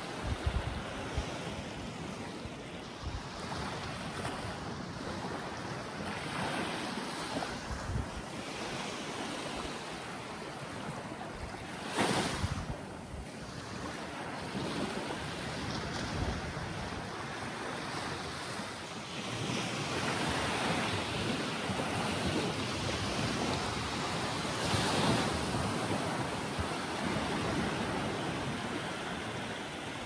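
Small sea waves washing up over a sandy beach and drawing back, with wind buffeting the microphone. There is a sudden loud surge about twelve seconds in, and the wash grows louder in the second half.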